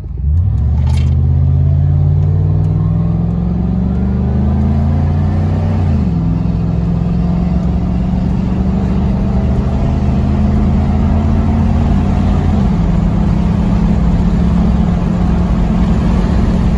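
A 2003 Ford pickup's engine accelerating hard from a stop, heard from inside the cab: the engine note climbs steadily, drops sharply as the automatic transmission shifts up about six seconds in, climbs again, and drops at a second upshift near the end. The transmission has just been fixed after slipping badly between second and third gear.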